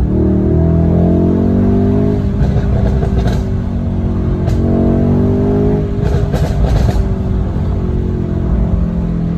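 Mercedes-AMG E63's twin-turbo V8 revving up and dropping back twice, with sharp exhaust pops and crackles as the revs fall: the overrun pops of a pop-and-crackle tune.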